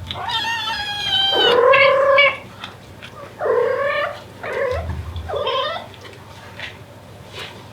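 Devon Rex mother cat meowing to call her kittens: one long, drawn-out call that drops in pitch partway through, then three shorter meows.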